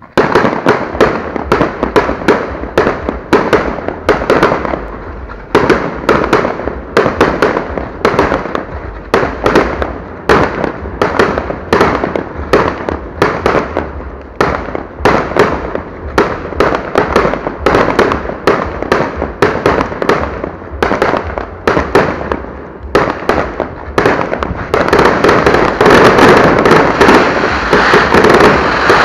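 Fireworks display: a rapid string of launches and bangs, several a second, thickening into a dense, louder barrage about 25 seconds in.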